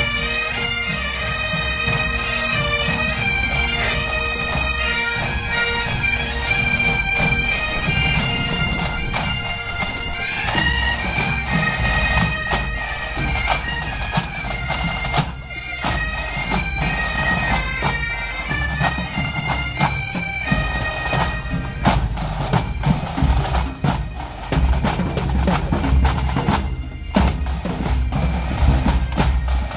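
Breton pipe band marching past: bagpipes play a tune over a steady drone, backed by snare and bass drums. About two-thirds of the way in the pipes fade and the drumming takes over, with sharp snare strokes and bass drum beats.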